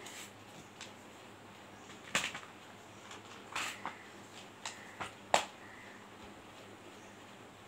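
Craft handling sounds: about six short, sharp clicks and taps as a paper card and marker are moved about on a plastic pencil box, the last one the loudest.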